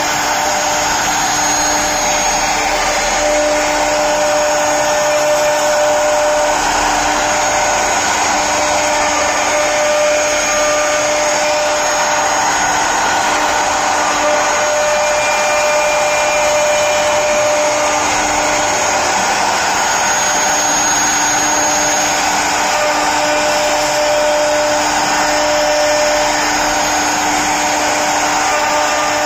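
CNC router spindle running steadily while carving wood for a door panel: a continuous whine over steady cutting noise.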